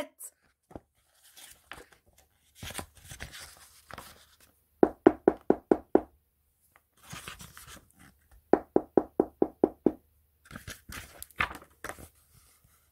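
Two quick runs of sharp knocks, about six and then about eight strikes a few seconds apart, between rustling of book pages being handled and turned.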